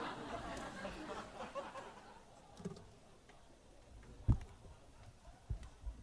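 Audience murmur dying away over the first couple of seconds, then a quiet hall with a few separate low thumps, the loudest about four seconds in: footsteps on a stage floor.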